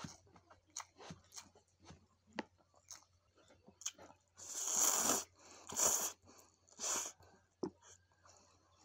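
Close-miked eating of rice vermicelli noodles: wet chewing and small mouth clicks, then about halfway through three loud slurps, roughly a second apart, as a mouthful of noodles is sucked in, followed by more chewing.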